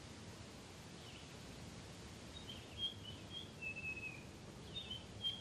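Faint bird chirps over quiet outdoor background noise: short high calls starting about a second in and coming more often in the second half, with one longer, slightly falling whistle.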